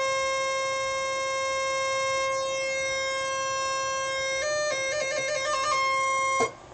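Realistic Moog MG-1 analogue synthesizer sounding one steady note with its two oscillators hard-synced. A little over four seconds in it steps up in pitch and flicks quickly back and forth between notes, then returns to the first note and cuts off just before the end.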